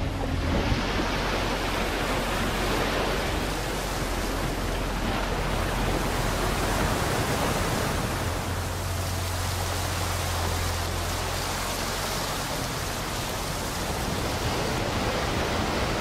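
Water pouring and splashing as an excavator bucket scoops gravel out of a river and lifts it, with water streaming from the bucket back into the river. A low steady hum runs underneath, strongest about halfway through.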